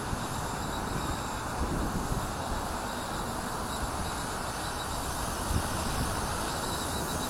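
Gusty wind buffeting the microphone in low rumbles, over the faint steady whine of a WLtoys V950 electric RC helicopter's motor and rotor in flight.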